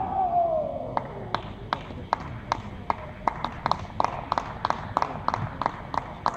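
A kendoka's kiai shout falling in pitch and trailing off, followed by a run of short sharp clacks, about three to four a second.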